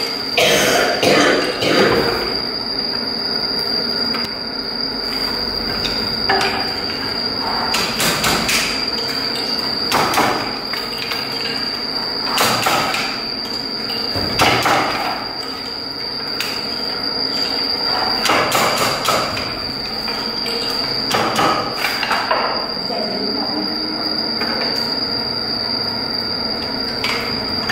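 Wooden handlooms at work: the beater knocks the weft into the cloth in sharp wooden knocks every one to three seconds, sometimes two in quick succession.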